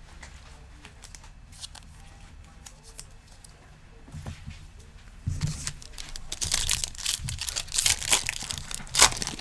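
Trading-card pack wrapper being torn open and crinkled, loud crackling that starts about five seconds in after some faint handling of cards.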